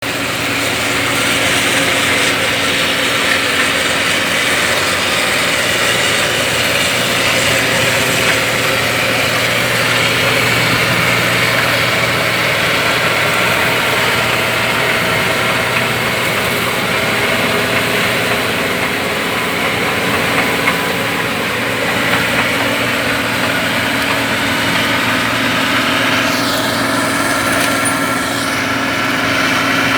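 Perkins 1006-T six-cylinder turbo diesel of a 5650 rice harvester running steadily and rumbling nicely.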